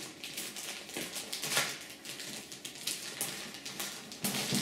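A clear plastic bag crinkling and rustling in irregular crackles as a laptop is slid out of it.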